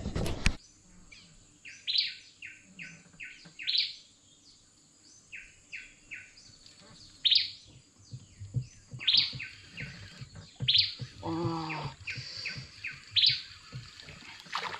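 Birds calling: runs of short, high, repeated chirps, with one brief lower call about eleven seconds in.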